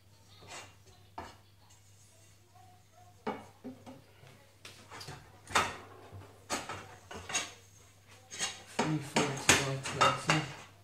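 Aluminium extrusion bars knocking and clattering against each other and the wooden tabletop as they are handled and stacked. The knocks come singly at first and crowd together near the end.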